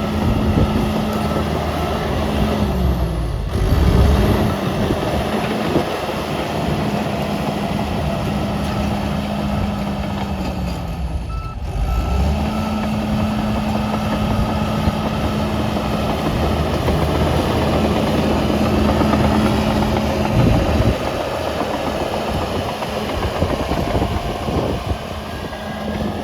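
John Deere 650J bulldozer's diesel engine running at working speed while the machine pushes material, its note sagging and recovering twice, a few seconds in and near the middle. A reverse alarm beeps during those changes.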